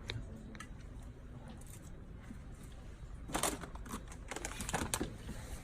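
Items being taken off a fridge's shelves by hand: a quick cluster of rustles and light knocks of packaging starting about three seconds in.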